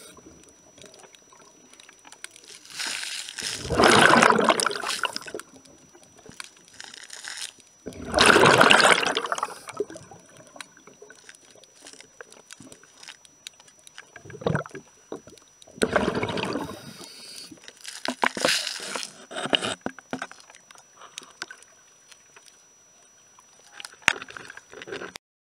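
Underwater bubbling: loud gushes of air bubbles every four to five seconds, like a scuba diver's exhalations through the regulator, with quieter gurgling and clicks between them.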